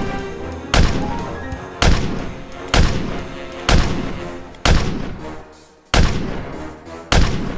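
Background music built on heavy booming hits about once a second, each dying away over sustained tones; seven hits in all.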